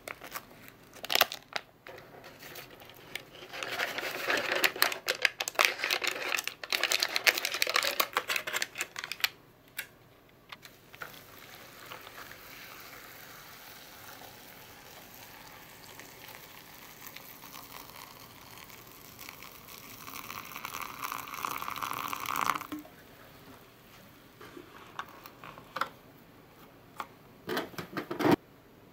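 A foil seasoning packet crinkling as it is squeezed and shaken, its dry flakes pattering into an instant-noodle cup. Then hot water pours from a kettle into the cup for about ten seconds, growing louder before it stops suddenly. A few light clicks and taps follow near the end as the cup's lid is pressed shut.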